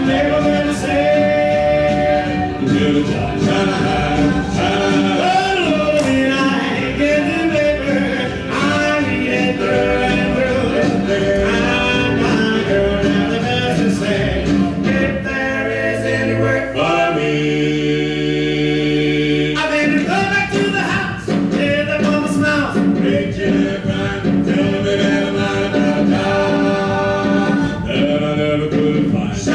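A song with lead and group singing over a full band. Around the middle the beat drops away into one held chord for about three seconds, then the full band and voices come back in.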